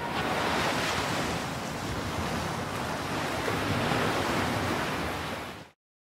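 Ocean surf breaking and washing onto a sandy beach, a steady rushing wash of waves that swells slightly and then cuts off abruptly near the end.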